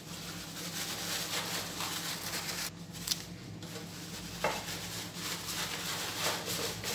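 Okra pods being rubbed with toilet paper in a coarse sieve to strip off their fine spines: a soft, steady rubbing and scraping, with a couple of faint clicks.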